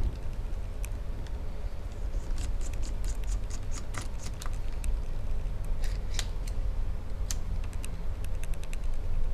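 Small irregular metallic clicks and scrapes of a precision Torx screwdriver working the battery screws of a 2012 11-inch MacBook Air, with a cluster of clicks in the middle, over a steady low rumble.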